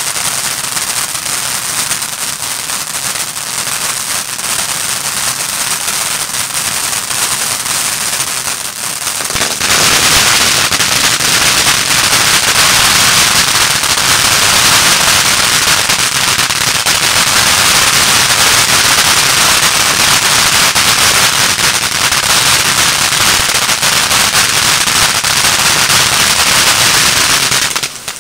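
Cutting Edge Fireworks ground fountain spraying sparks: a continuous hissing spray thick with rapid crackles. It gets clearly louder about ten seconds in as the effect intensifies, holds that level, and cuts off abruptly at the very end.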